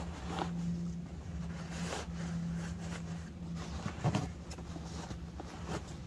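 Scattered rustles and light handling noises, with a sharper knock about four seconds in, over a steady low hum.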